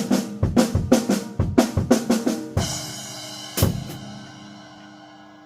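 Drum kit groove built around a Yamaha Recording Custom birch snare played raw, without a muffling ring, bright with lots of attack. About two and a half seconds in it ends on a cymbal crash, with one last hit about a second later left to ring out.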